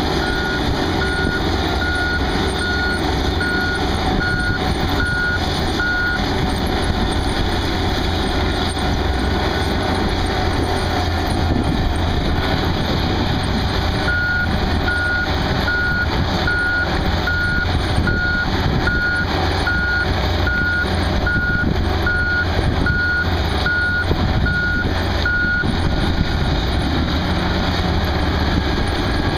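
Diesel engine of a tracked one-pass trencher running steadily under load with a deep rumble. A backup alarm beeps about once a second until about six seconds in, then again from about fourteen to twenty-six seconds in.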